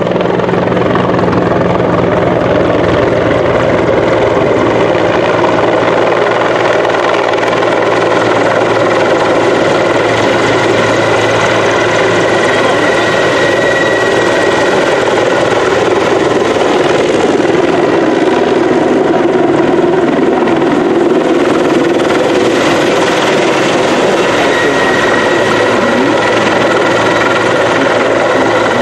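Mi-35 (Mi-24V) attack helicopter flying low and hovering, its two TV3-117 turboshaft engines and five-blade main rotor running loud and steady. A high turbine whine swells about halfway through and again near the end.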